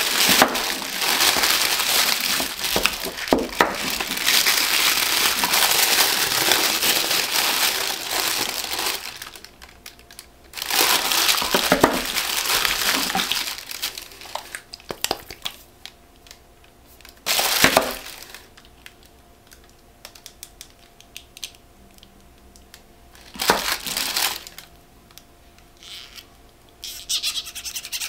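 Tissue paper crinkling and rustling as it is unwrapped by hand, continuous for about the first nine seconds. After that come a few short bursts of crinkling and scattered small clicks and taps as a glass skincare bottle is handled.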